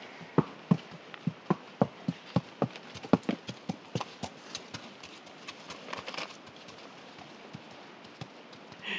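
A horse's hooves clip-clopping past, about three sharp strikes a second. The strikes are loudest in the first few seconds and grow fainter until they die away about two-thirds of the way through as the horse moves off.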